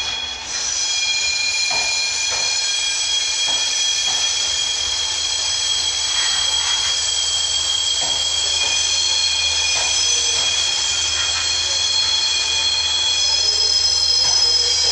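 Intercity passenger coaches rolling slowly on the track, their wheels squealing in several steady high tones at once, with scattered clicks. A low steady rumble sits beneath and grows a little louder near the end.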